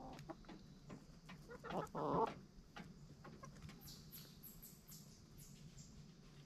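Backyard chickens clucking softly as they forage, with one louder cluck about two seconds in. Around the middle comes a quick run of high, falling chirps.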